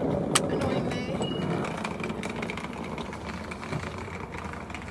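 A steady low mechanical hum, with a sharp click about half a second in.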